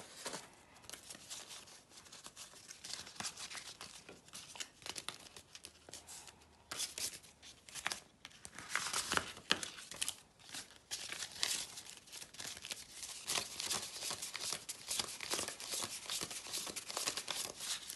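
Banknotes rustling and crinkling as a stack of Jamaican dollar notes is handled and counted by hand. The rustling is sparse at first and gets louder and busier about seven seconds in.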